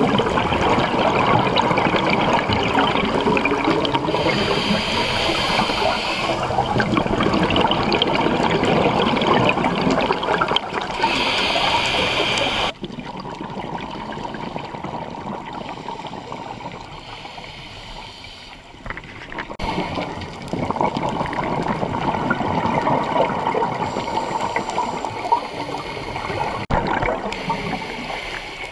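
Scuba divers' regulator bubbles heard underwater: a steady rushing and gurgling with a louder surge of exhaled bubbles every few seconds. The sound drops sharply quieter about halfway through, then swells again.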